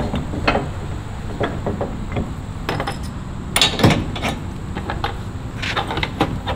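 Aluminium Weigh Safe 180 dual-ball hitch being slid into a pickup's 2.5-inch receiver: a series of clunks, knocks and metal clinks as the shank goes in, loudest about three and a half seconds in.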